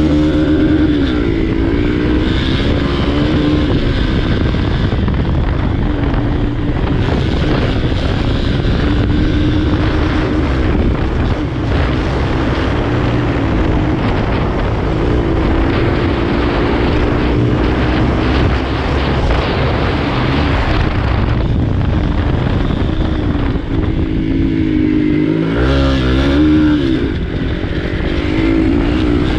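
Motorcycle engine under way on a dirt track, its pitch rising and falling with throttle and gear changes, with a sharp rev about three quarters of the way through. A steady rushing noise runs under it.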